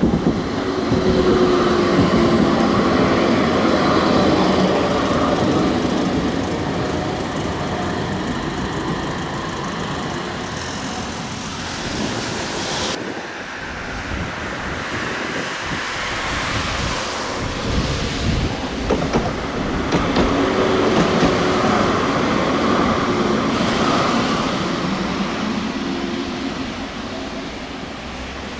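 Tram running on its rails: wheel-on-rail rumble with a motor whine that comes and goes. The sound changes abruptly about 13 seconds in.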